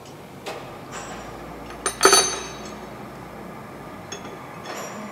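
Metal-on-metal clinks as a chuck key and a steel bar are worked in a lathe's jaw chuck, with one loud ringing clank about two seconds in and a lighter clink near the end.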